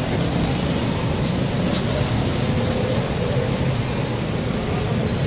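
Steady low rumble of background noise, even throughout with no distinct hits.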